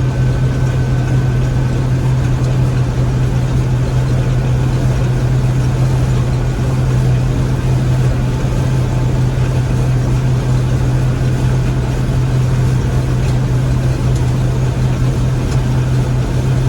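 Gleaner M3 combine running steadily while harvesting wheat: a loud, continuous engine and machinery drone with a strong low hum.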